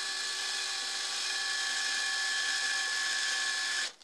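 Hand-held cordless drill running steadily with a small bit, boring a screw hole into a basswood guitar body through a wooden plug. The motor's whine holds one pitch and cuts off suddenly just before the end.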